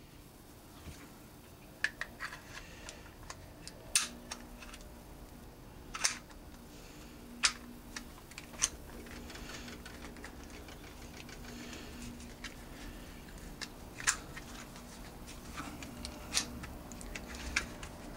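Irregular sharp clicks and clacks of a Grendel P12 pistol's slide and plastic frame being handled and fitted together by hand, a second or a few seconds apart.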